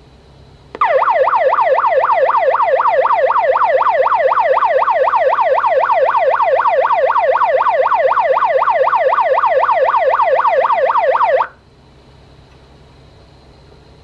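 Amseco VSD-208 voice driver sounding one of its electronic alarm tones through a Simplex LifeAlarm speaker: a loud siren-like tone that sweeps quickly up and down, about three times a second. It starts about a second in and cuts off abruptly near the end.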